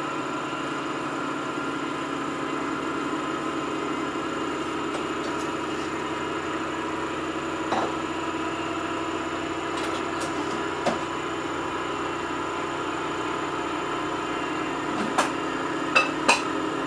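Samsung washing machine running with a steady motor hum. Sharp knocks come now and then, a few in quick succession near the end.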